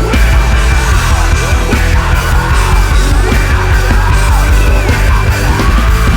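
Loud, aggressive rock music with shouted vocals over a heavy bass beat.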